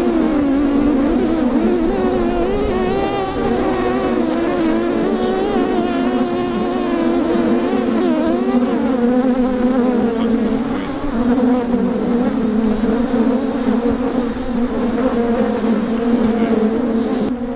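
Many honeybees buzzing at close range on a honeycomb frame lifted out of an open hive: a loud, steady hum of many overlapping tones that waver in pitch.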